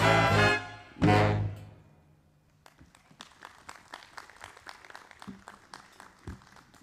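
A jazz orchestra ends a song with a held chord and a final hit about a second in that rings out and fades. Light, scattered applause follows.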